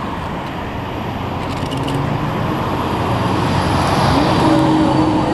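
Road traffic running close by, a steady rush that grows louder through the second half as a vehicle's engine passes, its tone rising about four seconds in.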